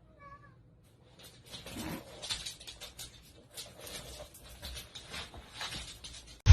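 A cat gives one short wavering chirp-like meow, then irregular scratching and rustling follows from about a second in.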